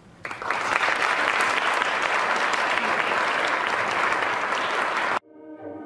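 Theatre audience applauding. The applause starts just after the beginning and cuts off abruptly about five seconds in, where string music begins.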